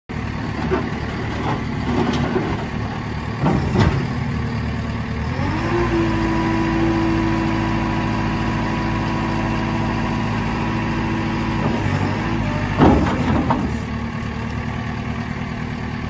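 A JCB 270 skid steer loader's 74 hp JCB diesel engine is running. About five seconds in, the revs rise to a steady whine as the loader arms lift the bucket, then drop back near twelve seconds. Short clanks come around four and thirteen seconds.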